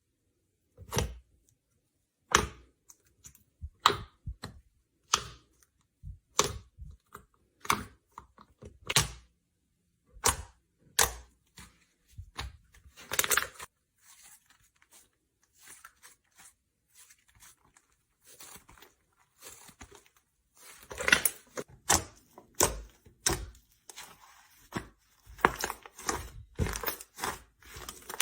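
Slime being pressed and squeezed, giving short, sharp squelching pops about once a second, fainter for a few seconds in the middle, then coming thick and fast near the end.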